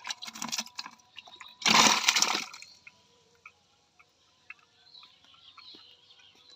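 Water splashing and dripping in a plastic bucket as a caught fish is handled over it, with one loud splash about two seconds in, then quieter drips.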